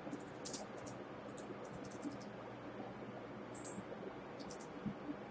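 Quiet room tone with a faint steady hum and hiss, broken by scattered soft, short clicks.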